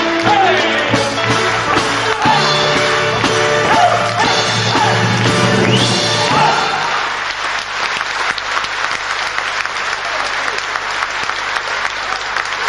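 Polish highlander folk dance music with voices rising over it, ending about six and a half seconds in, followed by audience applause.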